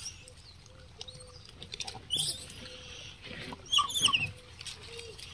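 Gray langurs feeding on apples: faint rustling and crunching, with high squeals about two seconds in and a louder quick run of short squeaks about four seconds in.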